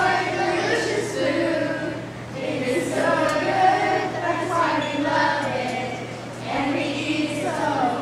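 A group of children singing together in unison, in sung phrases with brief breaths about two seconds in and again about six and a half seconds in.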